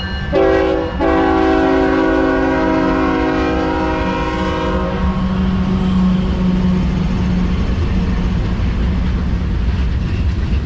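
A multi-chime locomotive air horn sounds a short blast and then a long one of about four seconds, over the low rumble of a moving train that carries on after the horn stops.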